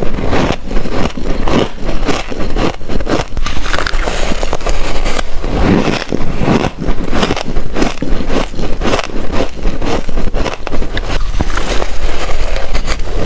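Crispy freezer frost being bitten and chewed close to the microphone: a dense, continuous run of crunching crackles.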